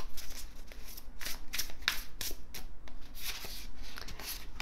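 A deck of tarot cards being shuffled by hand, the cards swishing and slapping against each other in a string of quick, irregular strokes, about three a second.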